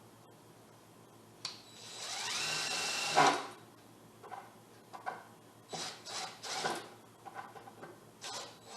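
Cordless impact driver running a 2.5-inch GRK screw into a 2x4. Its motor whine rises in pitch and holds for about a second, then ends in a short loud burst as the screw seats. Scattered knocks of the boards and tool being handled follow.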